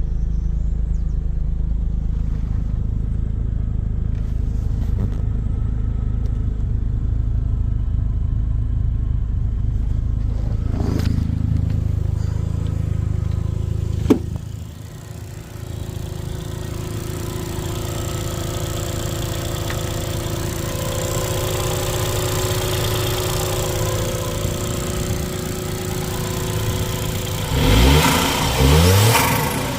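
Suzuki Cappuccino EA11R's turbocharged 657 cc three-cylinder running steadily at idle. About halfway through there is a sharp click and the sound briefly dips before settling back to a steady run. Near the end the throttle is blipped twice, the revs rising and falling quickly each time.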